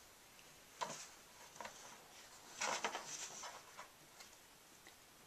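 Faint handling noise of Play-Doh tools and toys: a knock about a second in, then a short cluster of louder clicks and taps near the middle.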